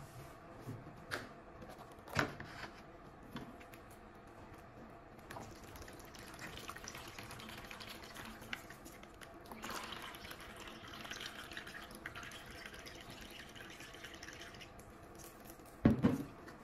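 Liquid gushing and splashing out of an upturned lead-acid car battery into a plastic tub for about nine seconds, as the battery is drained. A couple of light knocks come a second or two in, and a loud double thump near the end as the battery is set down.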